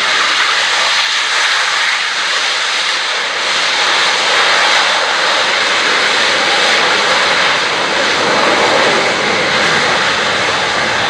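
C-17 Globemaster III's four Pratt & Whitney F117 turbofans in reverse thrust as it stops on the landing rollout: a loud, steady jet roar that grows deeper after about four seconds.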